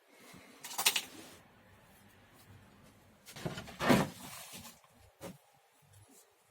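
Handling noise from a hand router plane being worked with on the bench: a short scraping, rustling burst about a second in, then a louder, longer one around the middle, with a few light knocks between.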